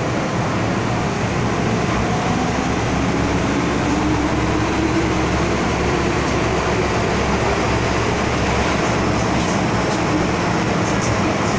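MTR M-Train electric subway train heard from inside the car as it pulls out of an underground station and gathers speed: a steady rumble of wheels and running gear, with a whine that rises in pitch over the first several seconds.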